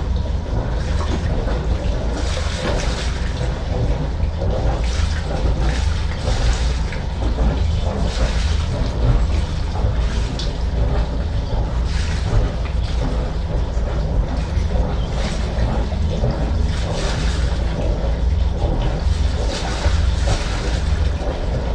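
Wind buffeting the microphone: a steady low rumble with gusty hiss rising and falling.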